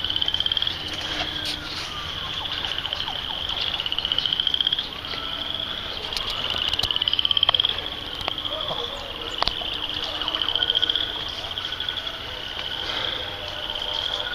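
Calling animals in a swamp: high, buzzy pulsed trills that come in rounds of one to two seconds, repeating every two to three seconds.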